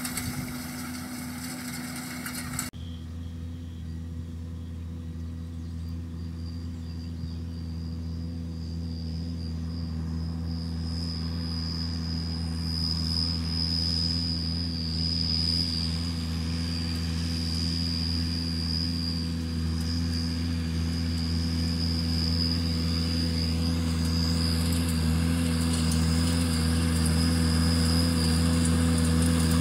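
Lamborghini R7.210 tractor's diesel engine running at steady working revs while it pulls a rotary hay rake, with a steady hum and a thin high whine on top. It grows slowly louder as the tractor comes closer.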